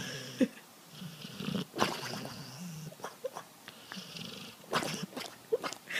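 A sleeping dog snoring in low rumbling breaths, with three short, high squeaky whimpers.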